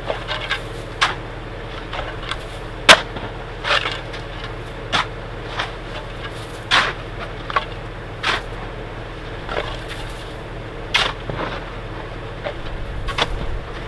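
A steady low mechanical hum with irregular short knocks and crunches, roughly one a second, the sharpest about three seconds in.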